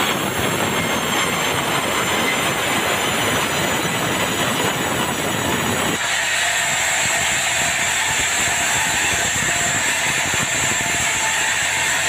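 Sawmill band saw cutting through a large red meranti log, with a dense rushing noise of the blade in the wood. About halfway through the noise thins as the cut finishes, and the blade runs on freely with a steady high whine.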